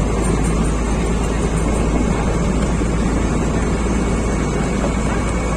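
Ferry launch's engine running with a steady low drone.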